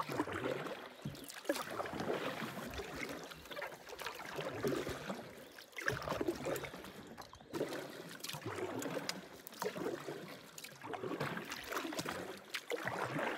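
Canoe paddle strokes in calm water, each stroke splashing and trickling off the blade, in a steady rhythm of repeated swells.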